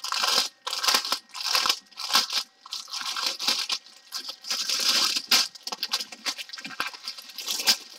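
Clear plastic packaging crinkling and rustling in irregular bursts as it is unwrapped by hand.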